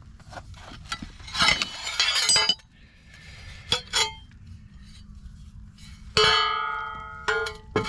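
Metal parts clinking and rattling as they are handled. About six seconds in comes a sharp metallic knock that rings on with a bell-like tone for about a second, and a shorter ring follows just after, like a metal propeller being knocked or set down.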